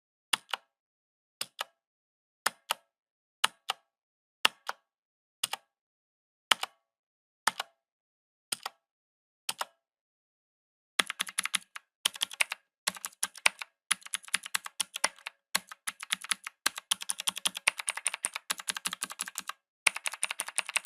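Mechanical keyboard typing. For the first ten seconds single keys are struck slowly, about one a second, each heard as a press click closely followed by a release click. About halfway through, fast continuous typing begins, broken only by a few short pauses.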